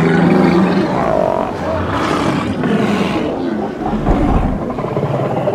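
A crowded herd of Pacific walruses hauled out on a beach, many bellowing and grunting at once in a loud, continuous, overlapping din.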